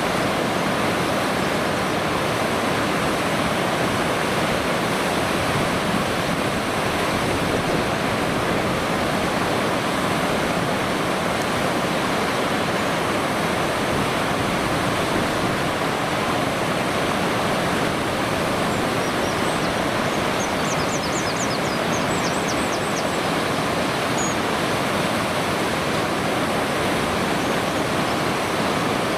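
Steady rush of flowing water, an even noise at a constant level. About two-thirds of the way in, a short run of high, rapid ticks sounds over it.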